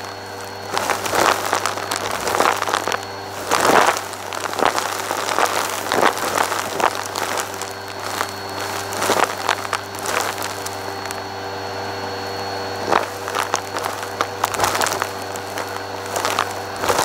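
Bissell Purple Helix vacuum running steadily through its open hose, with frequent irregular crackling and rattling as glitter, sequins, confetti and fluffy dirt are sucked up.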